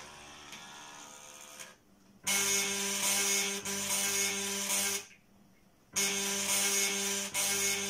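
Floppy disk drive's head stepper motor buzzing out a tune as musical notes. A fading tone gives way to a short gap about two seconds in, then two loud held phrases of a few notes each come with about a second's pause between them.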